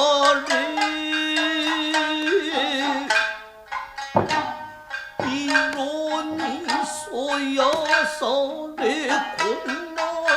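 Nagauta accompaniment: plucked shamisen notes, a long held melodic line for the first few seconds, and hand-drum strikes, with a brief lull around four seconds in.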